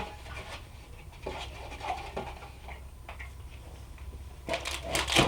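Snack packaging being handled: scattered soft rustles and clicks, then a louder crinkling rustle near the end.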